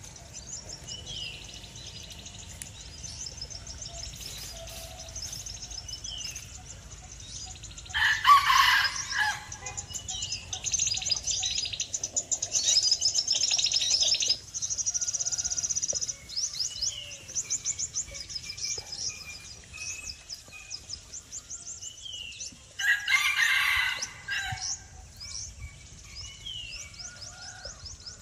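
Woodland ambience of birds chirping and insects trilling in rapid high pulses. Two louder calls stand out, each about a second and a half long, about 8 seconds in and again near 23 seconds.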